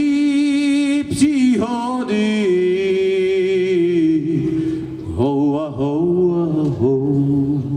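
Man singing a Czech folk song in long, drawn-out held notes with a slight waver, accompanied on a nylon-string classical guitar.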